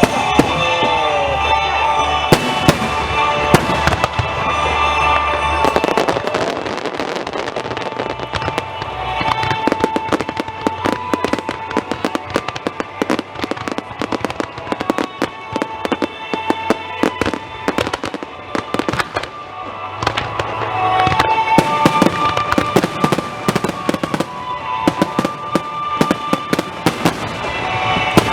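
Fireworks bursting in rapid succession, with many sharp cracks and pops that are densest through the middle, over music with held tones.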